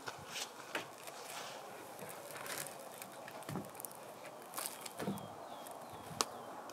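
Wooden knocks and scrapes of a long log being lifted and set down on top of a log wall, with dull thumps about three and a half and five seconds in and a sharp click near the end.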